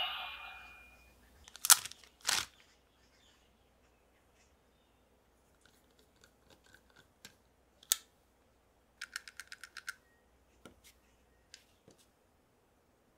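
The electronic sound effect from a DX Arc Eye Sword toy fading out in the first second, then two sharp knocks. After that, quiet clicks and taps of a small plastic transformation cube being handled and set down, with a quick run of about ten ringing clicks about nine seconds in.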